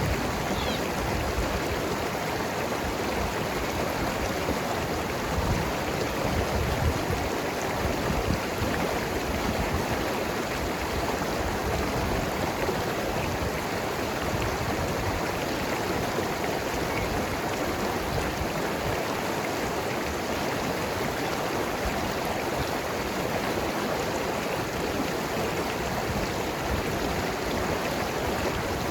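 Mountain river rushing and gurgling over rocks: a steady, unbroken wash of water, a little stronger about six to eight seconds in.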